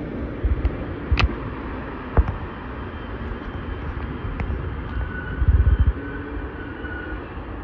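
LIRR M3 electric multiple-unit train pulling away from the platform: a steady rumble of wheels on rail with a few sharp clicks over the rail joints in the first couple of seconds. A brief burst of low rumble comes about halfway through, and a faint thin whine runs through the second half.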